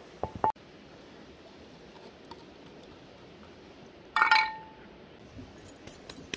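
Kitchen utensils clinking against each other while cooking: two short ringing clinks near the start, then one loud ringing clink about four seconds in that dies away over half a second, followed by a few faint light taps.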